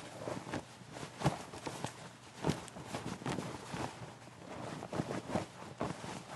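Denim jeans fabric rustling and rubbing, an irregular run of soft brushes and swishes with a few sharper scuffs.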